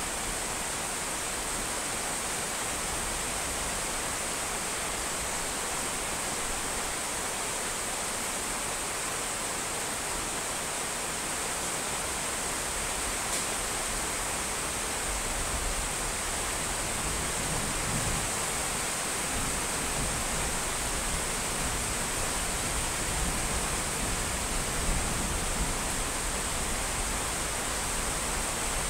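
Steady, even rainfall hiss. A low rumble rises in the second half.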